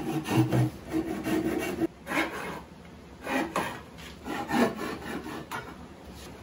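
Hand tool working wood: rough rasping strokes, quick and close together for the first couple of seconds, then single strokes about once a second.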